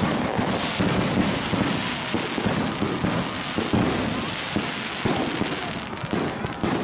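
Aerial fireworks going off: a rapid run of bangs over dense crackling.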